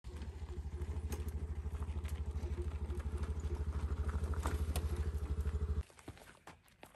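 Motor scooter engine running with a steady low throb, cutting off abruptly near the end; then only a few faint crunches.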